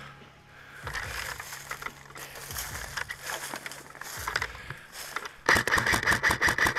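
Brush and dry twigs rustling and crackling. About five and a half seconds in comes a sudden, louder run of rapid sharp clicks: an airsoft gun firing on full auto.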